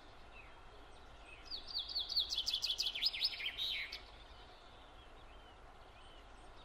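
A songbird singing a fast run of repeated high chirps, each sliding down in pitch, for about two and a half seconds, over a faint hiss.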